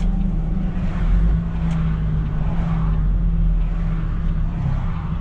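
MAN truck's diesel engine and tyre noise heard from inside the cab while driving, a steady low drone; the engine note dips slightly about four and a half seconds in.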